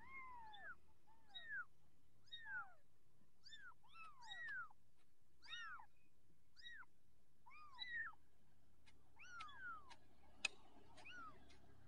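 Young kittens mewing, a string of short, thin mews that rise and fall in pitch, about one or two a second and sometimes overlapping. A few faint clicks come near the end, one of them sharp about ten seconds in.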